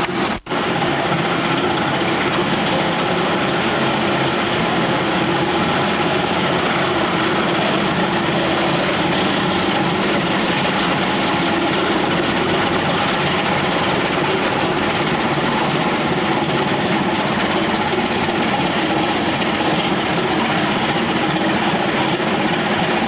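Steady drone of a pusher boat's diesel engines with churning water, heard from above in the lock chamber. A very short dropout comes just under half a second in.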